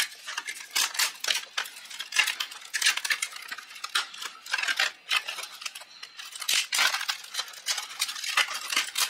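Black PLA support material being peeled and snapped off a 3D-printed mask by hand: rapid, irregular sharp plastic clicks and crackles as the support breaks away layer by layer.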